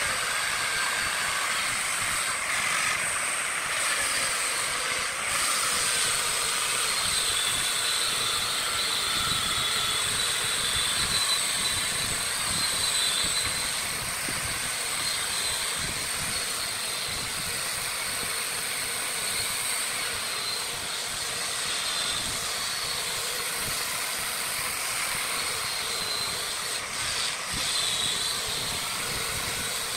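Angle grinder with a sanding disc pressed against a spinning wooden workpiece on a wood lathe: a steady high whine over a continuous sanding hiss.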